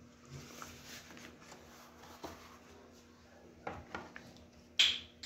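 Faint brushing on a metal stove grate, with a few light clicks and a brief louder sound near the end.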